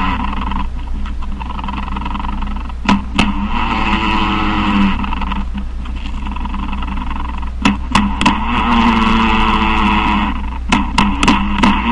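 Male spider courtship signalling: a few sharp taps, then a buzzing drone of about two seconds, repeating in bouts roughly every four seconds over a steady low hum.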